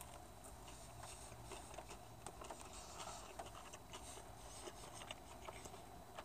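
Faint, scattered small clicks and rustles of a person eating, over quiet room tone.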